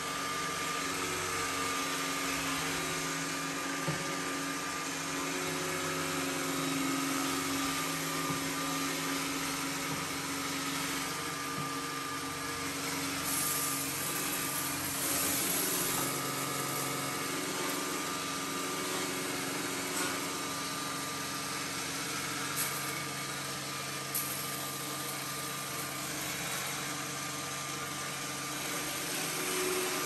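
iRobot Roomba s9+ robot vacuum running: a steady whir of its suction motor and brushes. It gets briefly hissier near the middle, and there are a few short clicks.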